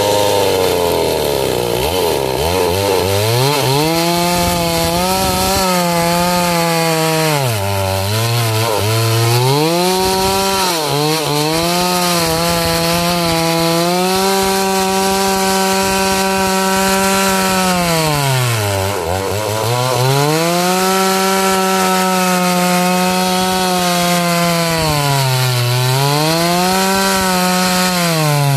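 Chainsaw cutting jackfruit wood, held at high revs with the engine speed dropping sharply and picking back up about five times.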